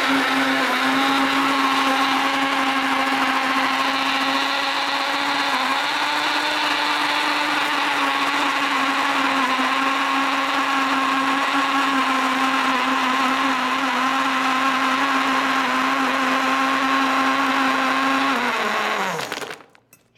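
Countertop blender running steadily while it blends strawberries and a load of ice cubes into a shake. About nineteen seconds in, the motor winds down, falling in pitch, and stops.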